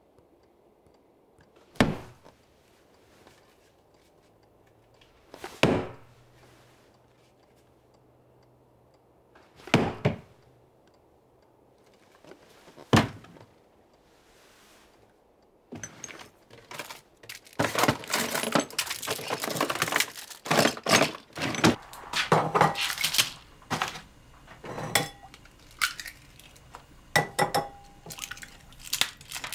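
A few single knocks a few seconds apart, then from about halfway a busy run of kitchen clatter: glass, crockery and cutlery clinking and knocking against each other and the worktop.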